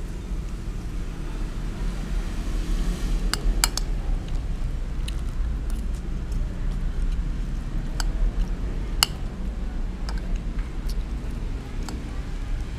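A spoon clinking and tapping against the dishes while eating: eight or so sharp clicks spread irregularly over several seconds, over a steady low rumble.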